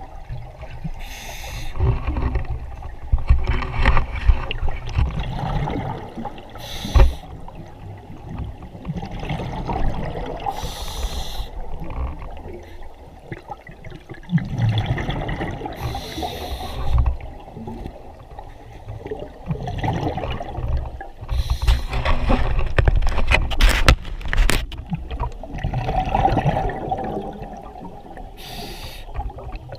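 Scuba diver's regulator breathing heard underwater: bursts of exhaled bubbles hissing and gurgling every few seconds over a steady low rumble.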